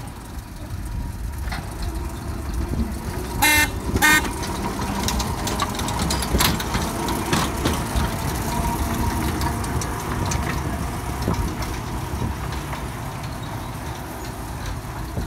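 Horn on a 1931 Whitcomb mine locomotive re-engined with a Chevrolet truck motor gives two short toots about half a second apart, a few seconds in. The engine runs steadily as the locomotive pulls its cars past, with scattered clicks from the wheels on the track.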